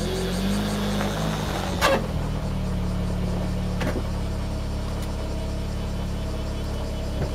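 Mitsubishi Galant Fortis running with a steady low drone, broken by a few sharp clicks or knocks: an abnormal noise that the owner is recording.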